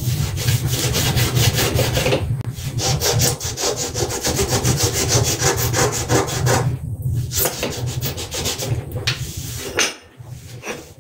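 Rapid back-and-forth scrubbing of a kitchen counter surface, many quick rubbing strokes a second, with a few short pauses, tailing off near the end.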